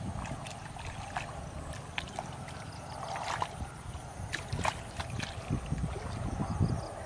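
Footsteps wading through shallow muddy water: sloshing and squelching in the mud, with small splashes, the low thuds clustering near the end.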